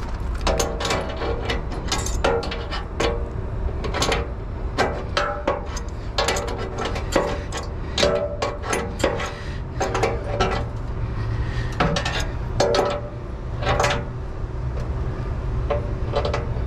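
Wrench and locking pliers clinking on a light's mounting stud and nut against the metal truck bumper as the nut is tightened down: a quick, irregular run of sharp metal clicks and clinks, a few every second.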